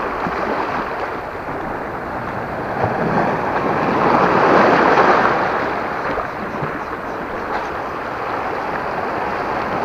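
Sea surf washing against a rocky, pebbly shore in a continuous rush, swelling louder as a wave surges in about four seconds in, with wind on the microphone.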